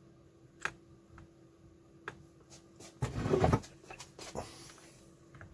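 Small clicks and handling noise from soldering work at a bench. About three seconds in there is a louder brief clatter and rub as the soldering iron is taken up, then a few more light clicks.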